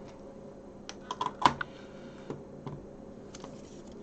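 Light clicks and taps of plastic and small screws being handled while a Sinclair QL's case is unscrewed, with a quick cluster of clicks about a second in and a few single ones after.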